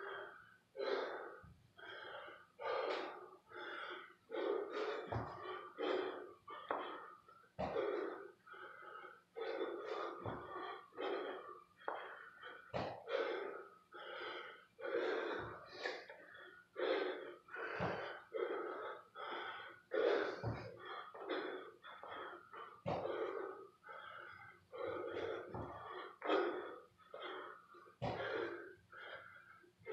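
Heavy, rapid panting from a man exerting himself through a set of burpees. A short low thump lands about every two and a half seconds as each burpee drops to the floor mat.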